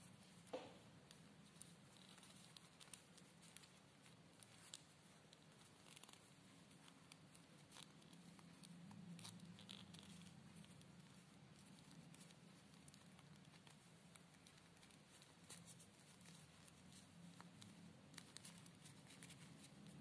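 Near silence: faint rustling and soft clicks of a knitted doll sweater being pulled onto a small resin ball-jointed doll, over a low steady hum. A slightly sharper click comes about half a second in.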